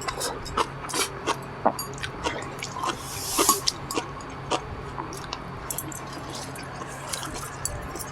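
Close-up eating sounds: wet chewing and smacking mouth clicks, irregular, with a brief rustling swell about three and a half seconds in.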